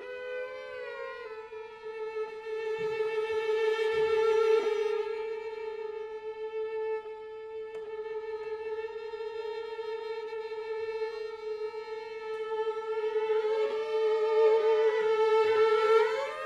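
A violin holding one long, wavering note with vibrato, swelling louder twice. Near the end, a second line slides up and down in pitch above it.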